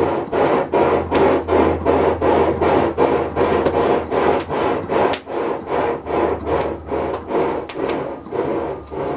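Forge fire blown with quick rhythmic puffs of air, about three a second, chuffing like a choo-choo train, over a low steady hum.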